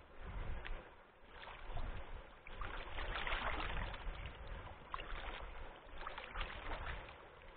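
Water rushing and splashing around a kayak, swelling in irregular waves with the loudest stretch a few seconds in, over a low rumble of wind on the microphone.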